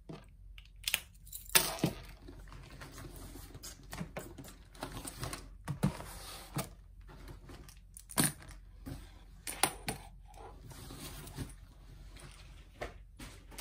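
Small objects being set down and arranged on a desk by hand: a string of irregular clicks, taps and knocks with some handling rustle. The sharpest knocks come about two seconds in and again around eight and ten seconds.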